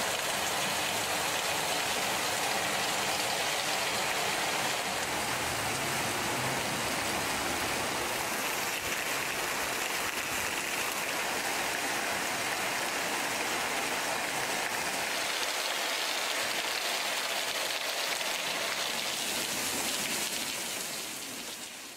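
Steady rain falling on a wet paved street, fading out near the end.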